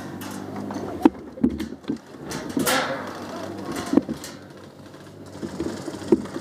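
Scattered knocks and bumps of handling noise, with a brief whoosh about two and a half seconds in, over a steady low hum.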